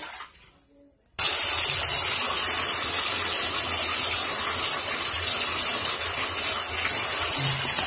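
Water running hard into a baby's bathtub: a steady rushing splash that comes on suddenly about a second in and stops at the end.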